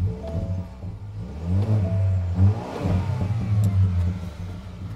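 Ford Ranger's 2.3-litre EcoBoost turbocharged four-cylinder, fitted with a Roush aftermarket exhaust, blipped several times through dual tips, its pitch rising and falling with each rev. The loudest rev comes about halfway through. The tone is deep and not a V8 sound.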